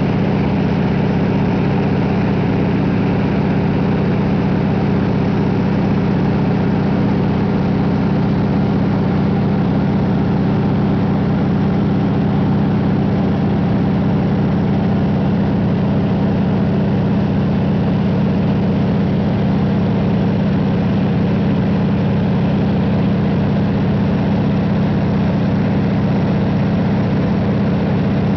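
Floatplane's piston engine and propeller droning steadily in level flight, heard from inside the cabin: a constant low hum with steady tones above it and no change in speed.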